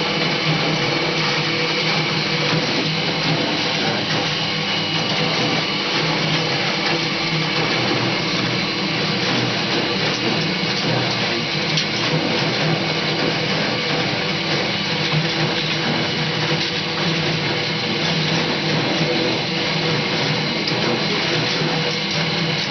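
Washing machine running: a loud, steady motor whir with several constant hum tones and no break.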